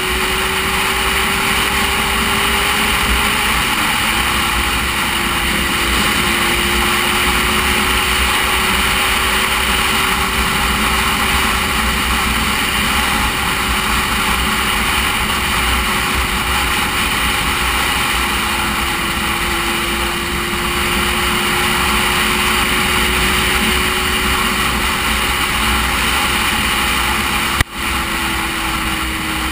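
Motorcycle engine at a steady cruising pace under heavy wind rush over the camera. The engine note dips sharply and recovers about four seconds in, and falls again near the end, and a single sharp knock sounds shortly before the end.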